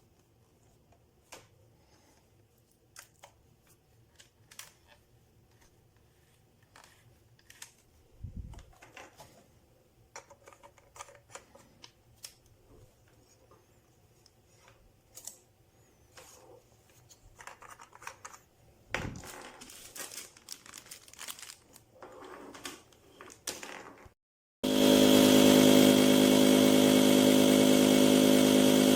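Faint scattered clicks and rustles of handling. Near the end the DREAMPUMP 16 PSI hoseless electric paddle board pump switches on suddenly and runs loudly and steadily.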